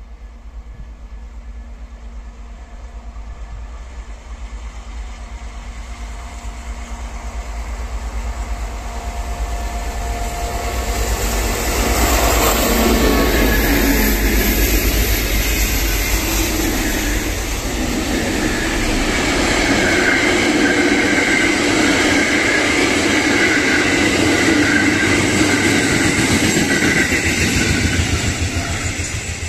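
Freight-type track-maintenance train of ballast-cleaning wagons, hauled by the DB Bahnbau class 233 'Ludmilla' diesel locomotive 233 493, passing on the rails. The rumble builds as it approaches, then the wheels rumble and clatter loudly over the rails as the wagons roll by with a steady ringing on top, and it falls away near the end as the last wagons pass.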